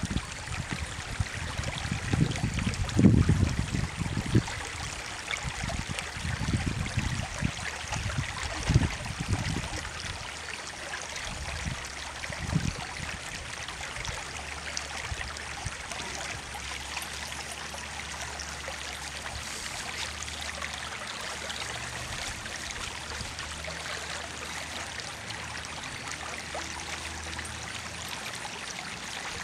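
A small stream trickling steadily, with several low rumbling surges in the first ten seconds or so.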